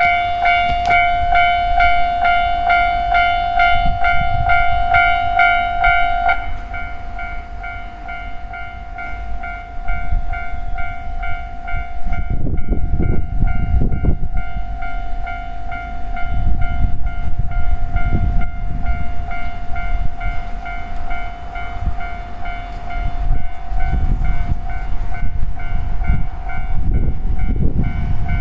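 Japanese level-crossing alarm ringing a steady, rapidly repeated electronic tone, which drops in volume about six seconds in. From about twelve seconds a train passes over the crossing with a heavy low rumble and wheel clatter that rises and falls.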